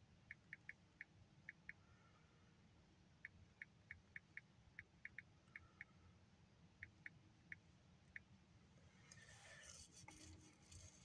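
Near silence broken by about twenty faint, short, high ticks at an uneven pace, with a soft rustle near the end.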